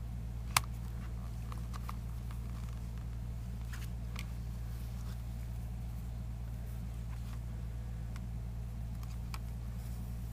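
Rayon seam-binding ribbon being pulled through a small hot iron: faint rustling and light clicks from the ribbon and the iron's plates, with one sharper click about half a second in, over a steady low hum.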